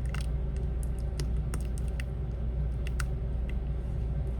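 Light, irregular clicks and taps of small repair tools and parts being handled on an iPhone 7 during reassembly, over a steady low hum.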